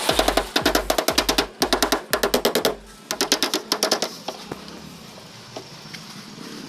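Background music with a steady drum beat and fast clicking percussion, which stops about three seconds in; a few faint scattered taps follow.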